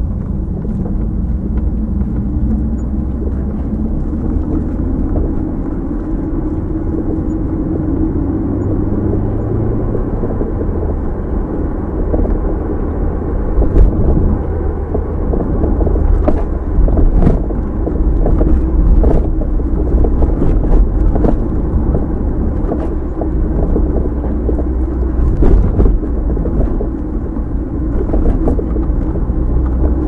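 Car driving: a steady low engine and road rumble, with frequent short knocks and rattles from about halfway through.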